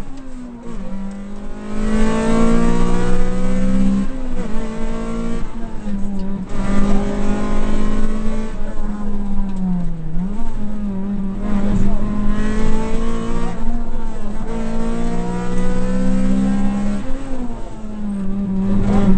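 Rally car's engine heard from inside the cabin, running hard at full throttle along the stage: its pitch climbs and drops back at each gear change, several times over, with brief dips about halfway through and near the end where the driver lifts or brakes.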